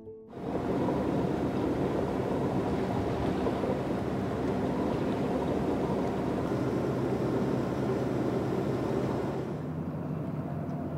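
Boat motor running steadily under way, its low hum mixed with a hiss of water and wind; the sound eases and the hiss drops away about nine and a half seconds in.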